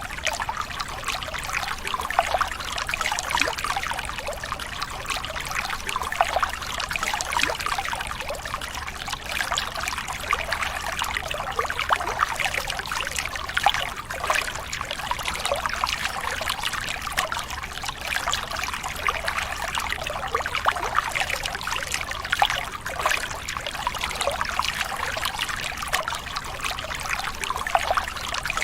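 Flowing water trickling and babbling steadily, a dense run of small splashes and gurgles with no pause.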